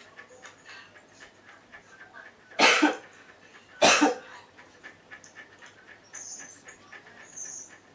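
A man coughing hard twice, about a second apart: a put-on coughing fit, faked for the camera.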